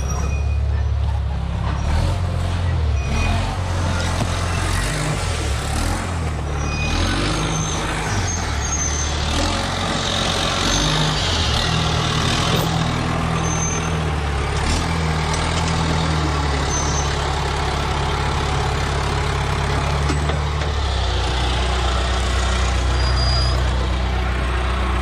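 John Deere 450G crawler dozer's diesel engine running close by, its pitch stepping up and down as the load and throttle change.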